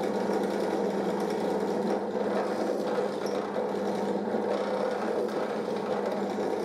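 Bench drill press running steadily with an even motor hum while its bit bores a hole into a small plywood piece.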